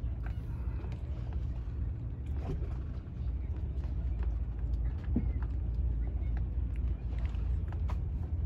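Boat engine running at low, steady revs, a low hum with a few faint clicks over it.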